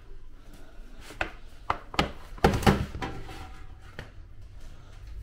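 A pan of freshly baked buns turned out onto a kitchen countertop: a handful of dull knocks and thuds, the loudest cluster about two to three seconds in.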